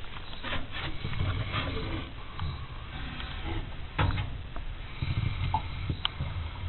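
A pointer dog snoring in its sleep: low rumbling breaths in slow waves, with a couple of short clicks.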